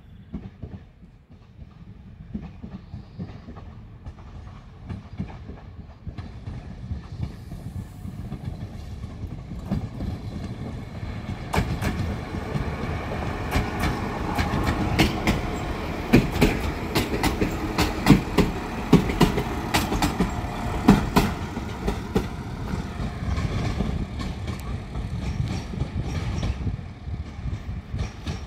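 Two coupled ŽS class 711 diesel multiple units (Siemens Desiro) pulling into a station: diesel engines running and wheels rolling, growing louder as the train approaches. A run of sharp clicks comes from the wheels over rail joints and points as it passes, then the sound eases as it moves away.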